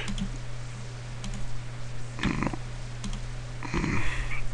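Computer keyboard and mouse clicking, a few light taps, over a steady low hum.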